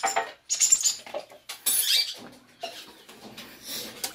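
Plastic bowls and cups clattering and scraping against each other and the concrete basin of a washing sink as they are handled for washing, in irregular knocks and rubs.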